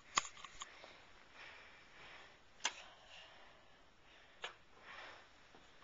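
Mostly quiet, with a few sharp clicks and knocks of handling at the camera, the loudest about two and a half seconds in, and faint soft rustling of a costume close to the microphone.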